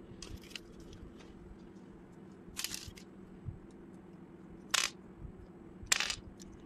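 Plastic Lego bricks clicking and snapping together as they are pressed on and handled by hand. There are a few faint clicks in the first second, a short cluster about two and a half seconds in, and sharp single snaps near five and six seconds, over a faint steady low hum.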